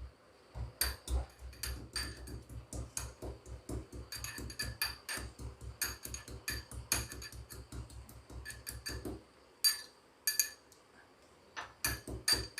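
Pestle pounding a piece of ginger in a mortar, coarse-crushing it in quick, steady strikes at about four a second. The pounding pauses for a couple of seconds near the end, with a few single knocks, then starts again.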